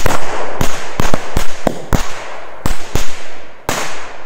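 Firecrackers going off one after another on the ground: about ten loud, sharp bangs in quick, irregular succession, each with a short echo.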